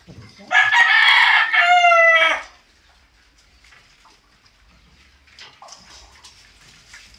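A rooster crowing once, loud and close, for about two seconds starting about half a second in, ending on a long drawn-out note.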